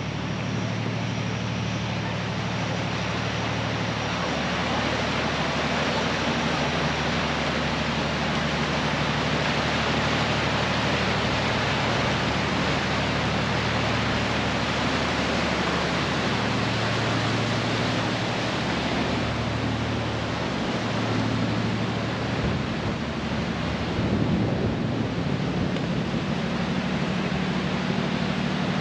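A low engine hum, steady but coming and going, under a constant loud rushing noise.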